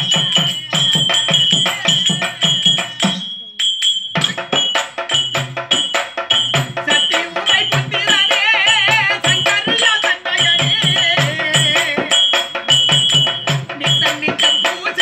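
Tamil village drama music: a hand drum beating a steady rhythm with jingling percussion and harmonium, breaking off briefly about three seconds in. From about halfway a high singing voice with a wide vibrato comes in over the accompaniment.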